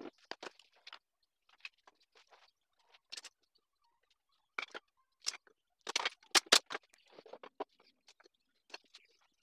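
Wooden brackets, shelf boards and small tools being handled and set down on a wooden workbench: scattered light clicks and knocks, with a few sharper wood knocks about six seconds in.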